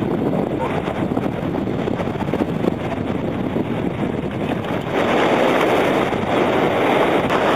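Wind buffeting the microphone over the wash of small waves in the shallows, a steady rushing noise that grows a little louder about five seconds in.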